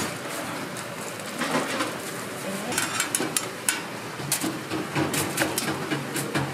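Work at a fried-chicken stall: a steady hiss, with sharp metal clicks and clinks of utensils coming quickly from about three seconds in, and voices in the background.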